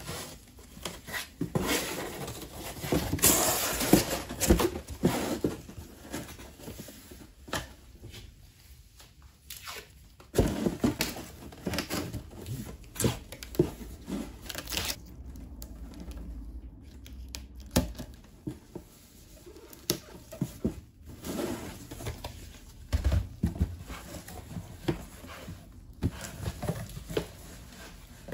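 Cardboard shipping boxes being handled, with packing tape pulled off a roll to seal a box: irregular scrapes, knocks and tape noises with short pauses between them.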